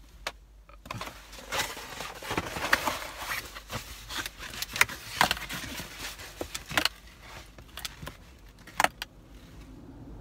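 Cardboard pizza box being handled and opened: a run of rustling, scraping and sharp clicks that dies away near the end.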